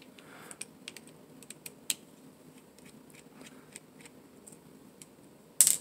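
Small scattered clicks and metal taps as a precision screwdriver works the handle screws of an Atomic Defender OTF knife, with a sharper click about two seconds in and a louder clack just before the end.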